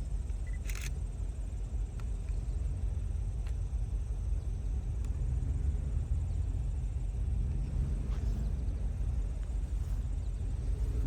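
Low steady outdoor rumble that grows gradually louder, with a single sharp click about a second in.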